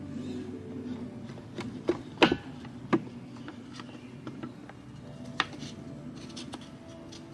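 A few sharp clinks and knocks of metal parts and hand tools being handled during compressor disassembly, loudest about two seconds in, over a low steady hum.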